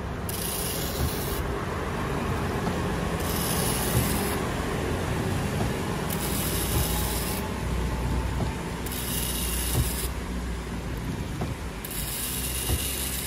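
Windscreen wipers with the original rubber blades sweeping back and forth over wet glass, rubbing and chattering instead of gliding: the blades judder because they do not conform well to the curved windscreen. The strokes alternate evenly, about every one and a half seconds.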